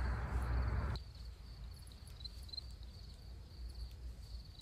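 Quiet garden ambience with a steady high-pitched insect trill. For the first second a louder rustling noise with a low rumble, which cuts off abruptly.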